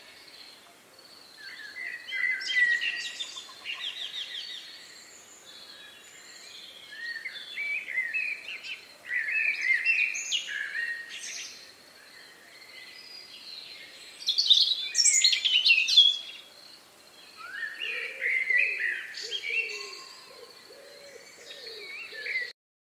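Songbirds singing in separate phrases of quick chirps and warbles, a few seconds each with short gaps between, over a faint steady high tone. A few lower calls join near the end, and the sound cuts off suddenly.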